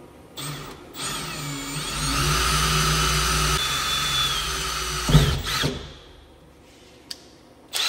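Compact cordless drill boring a hole through the sheet-metal back panel of a CNC machine enclosure. After a brief blip it runs for about four and a half seconds, getting heavier as the bit bites, with a short squeal midway and a sharp jolt just before it stops.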